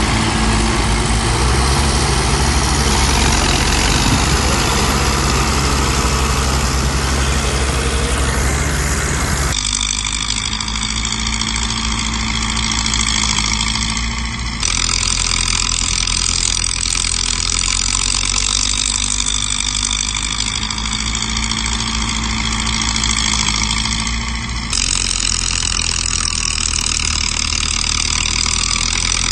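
Heavy diesel engines of earthmoving machinery, bulldozer and dump truck, running steadily. The sound changes abruptly three times, as if cut between separate recordings.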